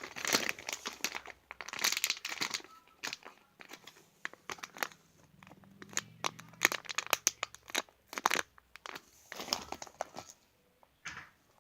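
Crinkling and rustling in irregular bursts as squishy toys are handled, with brief pauses between handlings.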